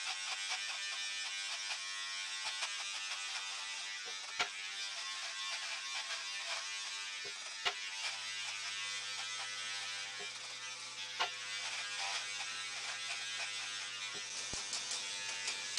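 Remington electric beard trimmer buzzing steadily as it cuts through a beard, with a few sharp clicks along the way.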